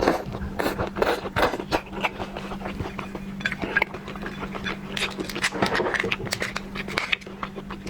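Close-miked lobster eating and shell handling: an irregular run of sharp clicks, cracks and moist smacks as the shell is picked apart and the meat eaten, over a steady low hum.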